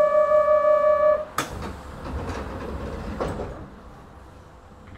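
A steady electronic warning tone sounds for just over a second as the sliding doors of a Kobe Municipal Subway 1000 series car close, followed by a thump as they shut, a lighter knock, and another thump near the end.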